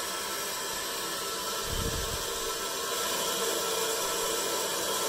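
Water rushing through the feed valve and pipe into a drained steam boiler as the valve is eased open: a steady hiss that grows a little louder about three seconds in. A brief low thump sounds about two seconds in.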